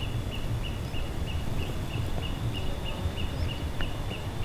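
Outdoor ambience by open water: a low rumbling noise under an evenly repeating series of short, high chirps, about three a second, from an insect or bird.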